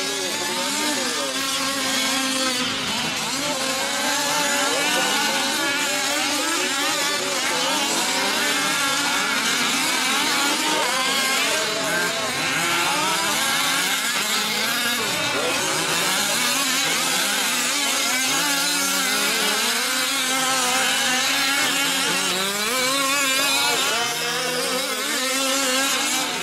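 Several gas-powered 5th-scale RC off-road trucks' small two-stroke engines racing together, many overlapping engine notes revving up and falling off constantly as they throttle through the track.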